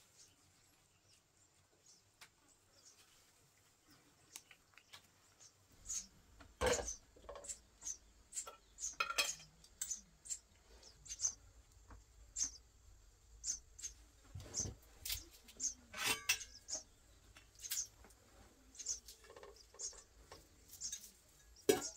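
Kitchenware being handled: irregular metallic clinks and knocks as a metal cooking pot, a plate and small jars are set down and moved, starting about six seconds in, with one sharp knock near the end. A low steady rumble sits underneath from the same point.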